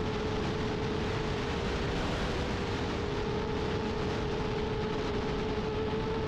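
FPV quadcopter's motors holding a steady whine under wind rushing over the onboard camera in flight.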